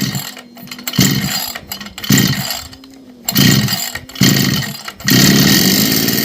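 Petrol brush cutter being pull-started with its newly fitted starter ratchet: five short pulls of the recoil starter, each a quick cranking burst. About five seconds in the engine catches and keeps running steadily.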